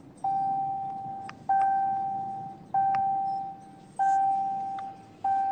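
Car's electronic warning chime: a single-pitch bong that repeats about once every 1.25 seconds, five times, each one fading out.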